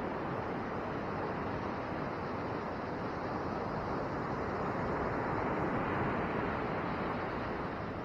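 Ocean surf breaking and washing up the beach, a steady rush that swells about five or six seconds in and then eases, with some wind rumbling on the microphone.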